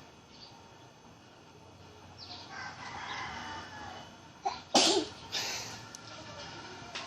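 A person faking a sneeze: a drawn-out voiced build-up of about two seconds, then a sharp, loud burst nearly five seconds in, followed by a couple of smaller bursts.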